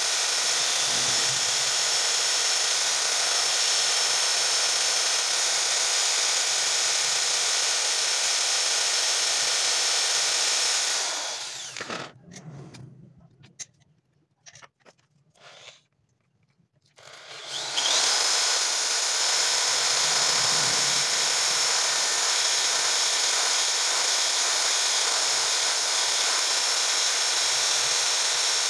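Electric drill running steadily, spinning a sandpaper-wrapped hone inside the small end of a Yamaha Mio scooter's connecting rod to open up the piston-pin bore, which seized when the engine ran out of oil. About eleven seconds in it winds down, a few faint clicks come in the near silence, and about six seconds later the drill starts up again.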